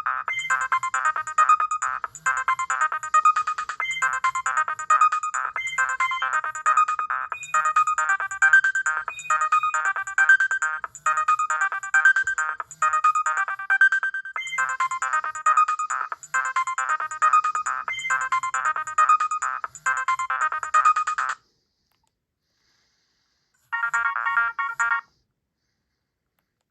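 Nokia 6010 mobile phone playing an electronic ringtone melody through its small speaker, several notes sounding at once. It cuts off suddenly about 21 seconds in, and after a pause a short burst of tones sounds for about a second and a half near the end.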